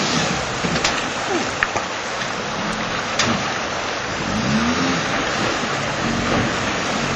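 Suzuki 4x4's engine revving up and down as it crawls through a shallow river ford, over a steady rush of water and splashing. A few sharp knocks come in the first few seconds, as the wheels go over the stones.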